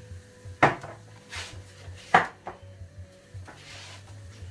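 Crockery and utensils clinking and knocking while whipped cream is put onto a plate of French toast: two sharp knocks about a second and a half apart, the second the loudest, with lighter clicks and short scraping between.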